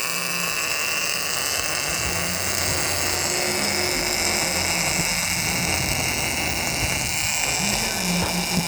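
Steady machinery noise, like a power tool running without pause.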